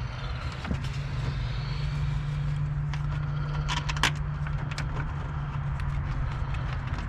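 Plastic clicks and knocks as a replacement radiator cooling fan assembly is worked down into its bottom mounting slots, over a steady low hum that starts about a second in.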